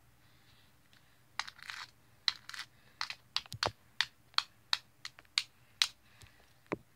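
A hairbrush stroking through a doll's hair: a run of short brush strokes, about two or three a second, starting about a second and a half in.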